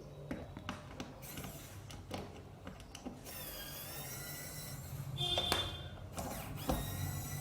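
Tools and hands working on a 2.1 speaker system's cabinet as it is opened for repair: scattered clicks, a stretch of scraping about halfway through, and a brief squeak.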